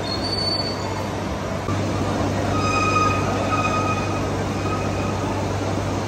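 Large engine lathe turning a heavy steel roller under cut, a steady machine noise with a low hum. From about two and a half seconds in, a high squeal comes and goes several times as the tool cuts the metal.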